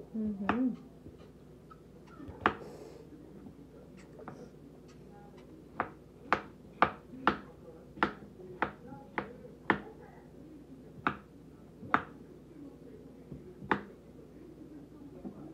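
Kitchen knife cutting cantaloupe into cubes, the blade tapping on a wooden cutting board: a few scattered taps, then a steady run of about two taps a second through the middle, then a few more spaced out.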